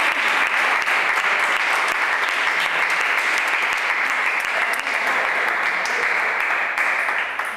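Spectators applauding the end of a table tennis rally: steady, dense clapping that dies away near the end.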